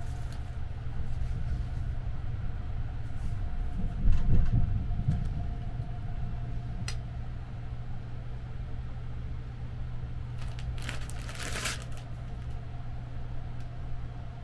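Steady low rumble of the Sunrise Izumo sleeper train running, heard inside a small compartment, with a louder low thump about four seconds in. Plastic amenity packets rustle and crinkle as they are handled, most around eleven seconds in.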